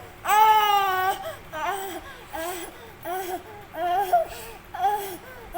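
Baby crying: one long wail in the first second, then a string of shorter, broken cries.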